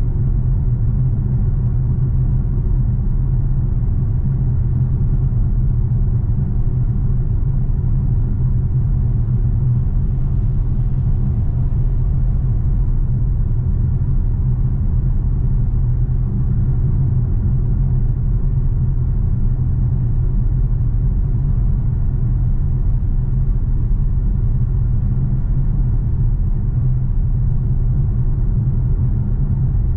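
BMW X6 M Competition's 4.4-litre twin-turbo V8 and tyres heard from inside the cabin while cruising at a constant motorway speed of about 120 km/h: a steady low drone with road rumble that does not change.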